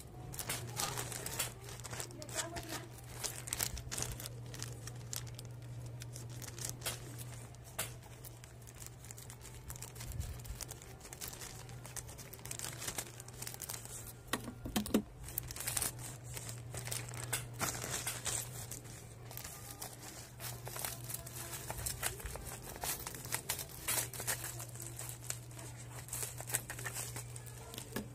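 A wireless USB adapter's retail packaging being opened and unpacked: irregular crinkling, tearing and rustling with clicks as the box and wrapping are handled, over a steady low hum.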